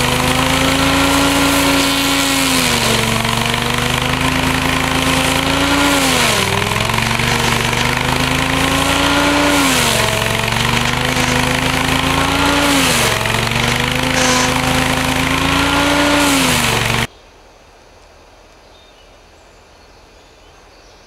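Stump grinder's Kohler 25 hp petrol engine running at full throttle while its toothed cutting disc grinds into a tree stump, spraying chips. The engine pitch sags under load and recovers about every three to four seconds as the cutter bites into the wood. Near the end the sound cuts off abruptly to a quiet outdoor background.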